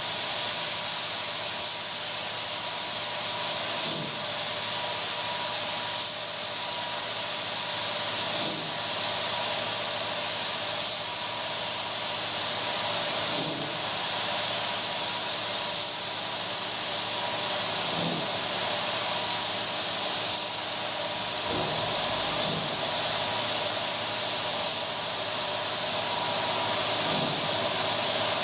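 Compressed-air spray gun spraying a lacquer top coat onto a wooden door: a steady hiss of air and atomised finish over a faint steady hum, with a brief swell about every two and a half seconds.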